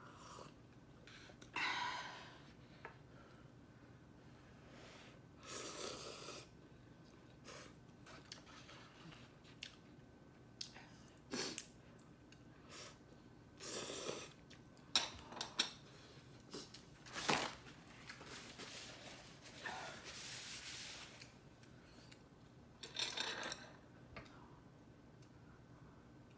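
Close-up eating of noodle soup: several short slurps of noodles and broth a few seconds apart, with a handful of sharp clicks of utensils against the bowl.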